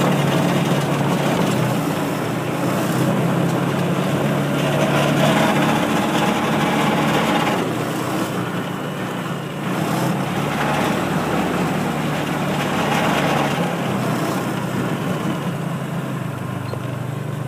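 Engine of a small ride-on farm vehicle running steadily as it is driven along, with a steady low hum.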